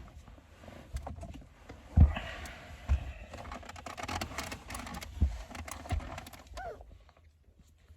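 Hiccups: a series of sudden, short hics at uneven gaps of about one to two seconds, the loudest about two seconds in, with small clicks between them and a brief falling squeak near the end.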